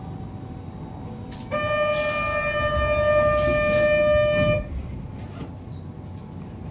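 Subway car door-closing warning tone: one steady, single-pitched tone lasting about three seconds, starting about one and a half seconds in, while the doors slide shut with a short hiss. The train's low rumble continues underneath.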